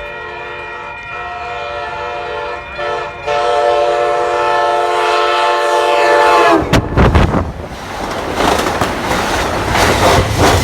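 Amtrak Pacific Surfliner cab car's multi-chime air horn sounding one long chord, which grows louder about three seconds in and sags in pitch as it stops around six and a half seconds in. The rush and rail clatter of the passing train follows.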